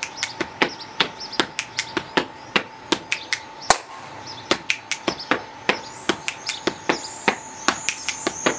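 Body percussion: finger clicks, hand slaps on the chest and thigh, and claps played as a repeating rhythmic phrase, a steady run of sharp hits about two to three a second.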